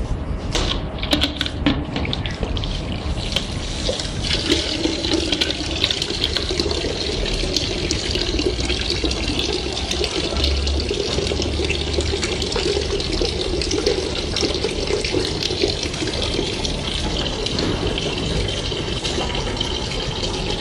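Water running steadily out of a bench-top spot laser welder's internal cooling tank through a hose on its drain port, as the old cooling water is changed. It is preceded by a few sharp clicks in the first two seconds.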